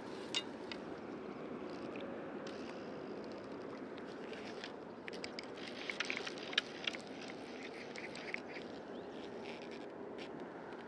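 Steady low rush of river water and wind on the microphone, with a cluster of small clicks and scrapes about five to seven seconds in.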